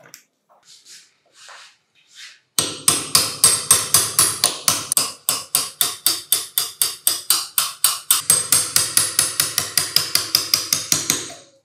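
A hammer tapping a brass pin punch in quick, even strokes, about five a second, driving a steel pin out of the impact driver's plastic gear housing. A few faint handling clicks come before the tapping starts about two and a half seconds in.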